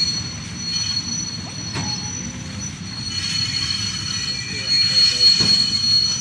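Steam tank locomotive hauling a train of goods wagons, with a steady high-pitched squeal from the wheels over a low rumble. It grows louder about three to five seconds in.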